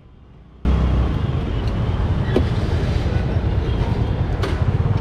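Steady road traffic noise with a low rumble of passing vehicles, starting suddenly about half a second in.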